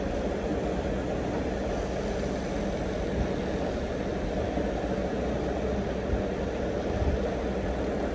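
Percussion massage gun running, its round head tapping rapidly against the shoulder through cloth, a steady low buzz.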